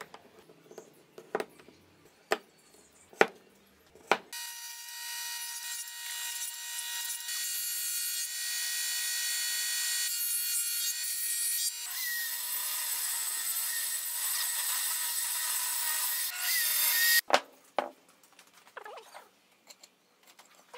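Wooden pieces clicking and knocking as a joint is handled, then a planer running loud and steady, its sound changing partway through as a board is fed; it cuts off suddenly, and a few light wooden knocks follow.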